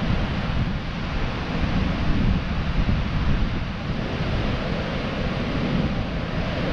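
Wind buffeting the microphone in gusts, over the steady wash of rough surf breaking on the beach.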